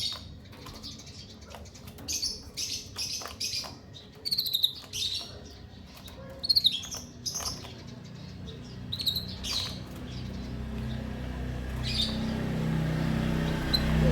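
Short, high chirps and calls from caged finches, a female canary and a male white-headed munia, mixed with light clicks. A low hum grows underneath over the last few seconds.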